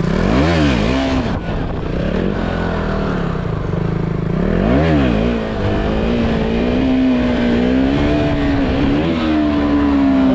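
KTM 200 Duke's single-cylinder four-stroke engine blipped twice, about half a second and five seconds in, then held at higher, slightly wavering revs while the front wheel is lifted into a wheelie.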